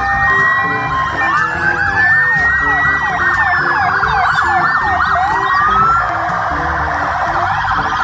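Sirens of several Czech police cars sounding at once, their wails overlapping and rising and falling at different speeds, some in quicker yelping sweeps.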